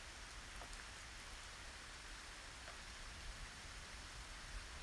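Steady rain falling, a faint even hiss with a few scattered drops ticking.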